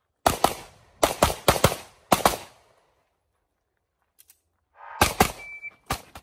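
Pistol shots fired in quick succession on a practical shooting stage: about seven sharp cracks, mostly in fast pairs, over the first two seconds, then a pause, and about three more shots near the end.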